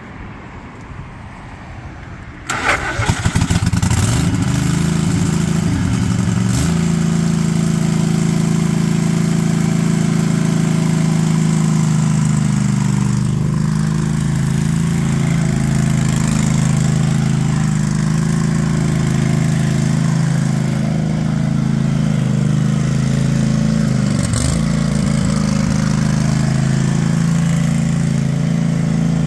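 Craftsman riding lawn tractor's engine cranked by its starter about two and a half seconds in, catching almost at once after a couple of months unused, then running steadily as the tractor drives off. Its pitch dips briefly and recovers near the end.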